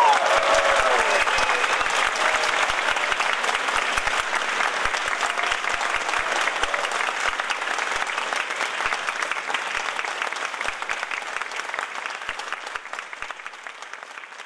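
Concert audience applauding, with the last held note of the music dying away just as the clapping begins. The applause is dense and steady, then thins and fades near the end.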